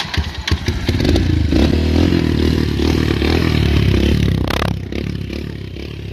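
Dirt bike engine, a bike with a misfire, sputtering with a few uneven pops and then catching about a second in to run steadily. Its running sags briefly about five seconds in.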